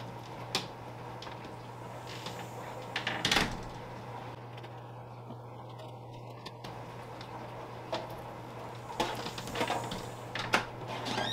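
Scattered knocks and clatter of a plastic litter box and a folding metal stand being handled and carried in through a storm door, the loudest knocks about three seconds in and again near the end, over a steady low hum.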